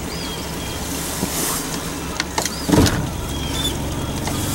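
Bow-mounted electric trolling motor running with a steady low hum as the boat creeps along. A single louder knock comes about two-thirds of the way through.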